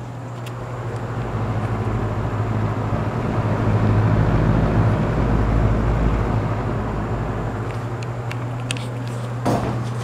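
Galaxy box fan running: a steady motor hum under the rush of moving air. The air rush swells and rumbles about halfway through, with wind on the microphone, then eases.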